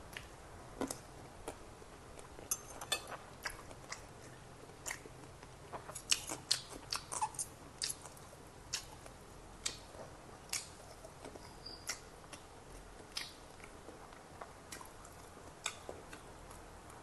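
Close-miked chewing and wet mouth sounds of a person eating rice and pork, with many scattered sharp clicks and taps, busiest about six to seven seconds in.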